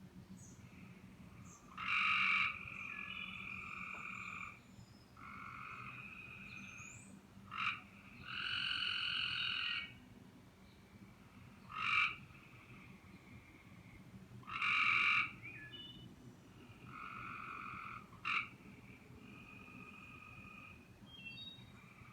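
Tree frogs trilling from the trees: repeated buzzy trills, each one to two seconds long. Several frogs call over one another, with a louder, nearer call every few seconds.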